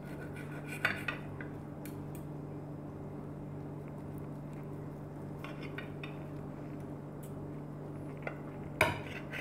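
Table knife and fork clinking and scraping on a ceramic plate while slicing grilled chicken breast: a few short sharp clinks, the loudest cluster near the end. A steady low hum sits underneath.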